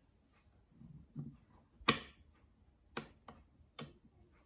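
Small 5 mm neodymium magnetic balls snapping together with sharp clicks, four in all, the loudest about two seconds in, as the magnetic-ball tyre is attached.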